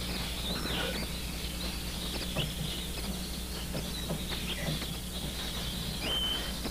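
Birds chirping in short, scattered calls, with one brief held whistle near the end, over a steady low hum.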